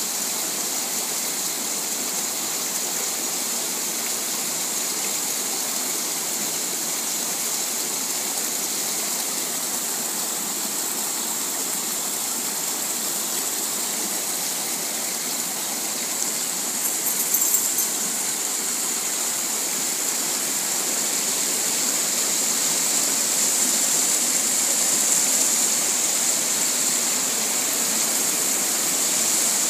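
Spring water rushing and splashing through concrete trout-farm raceways: a steady hiss that grows a little louder after about twenty seconds. A short sharp noise cuts in about seventeen seconds in.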